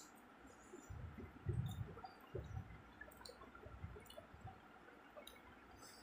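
Close-miked eating sounds of someone eating rice and fish by hand: chewing with wet mouth clicks and smacks, and a few low dull thumps about one to two and a half seconds in and again around four seconds.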